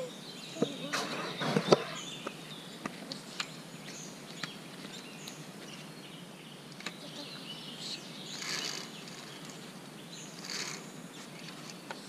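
Scattered sharp metallic clicks and clinks, a few seconds apart, from the steel cables, shackles and overhead safety line of a suspended log bridge on a rope course as a child steps from log to log. There are a couple of soft rustles near the end.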